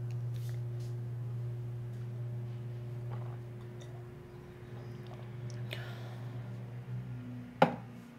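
A drinking glass set down on a wooden bedside table: one sharp knock near the end, after a few small handling clicks, over a steady low hum.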